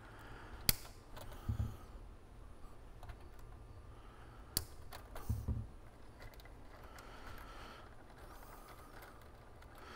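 Hands working the wiring harness inside a cassette deck's metal chassis: light rustling and handling with two sharp clicks, one a little under a second in and one about halfway through, and a couple of dull bumps.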